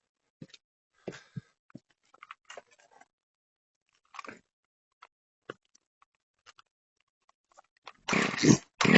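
Faint scattered crunches and clicks, then about eight seconds in a chainsaw fires with a short loud burst, cuts out briefly, and starts running loudly. The saw is cold.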